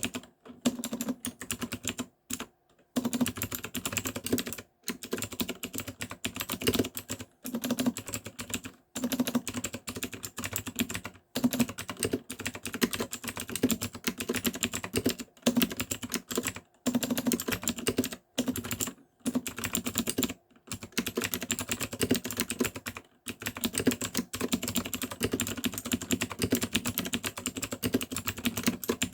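MUCAI MKA610 mechanical keyboard fitted with Drinkey blue clicky switches, typed on continuously: dense runs of keystroke clicks broken every few seconds by brief pauses.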